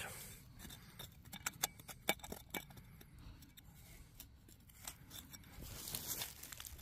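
Faint, irregular clicks and scrapes of a hand digging tool working into soil after a deep iron target, with a brief hiss of loose earth near the end.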